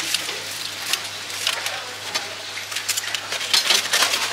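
Metal tongs clicking and rattling as skewered fried food is picked and dropped into a styrofoam takeaway box, with a quick run of sharper clicks near the end.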